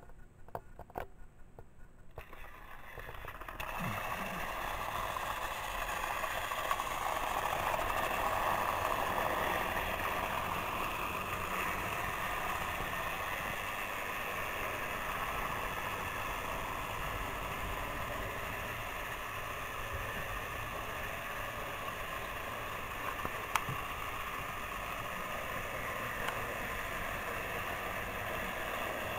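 Several battery-powered Trackmaster toy train engines running on plastic track, their small motors giving a steady whir that starts about three seconds in after a few light clicks.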